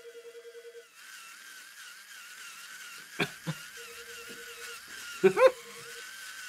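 Wavering high electronic whine with a regular wobble, over a fast-pulsing lower beep that comes and goes. A few short squeaky sounds come a little after three seconds in and again near five seconds, and these are the loudest.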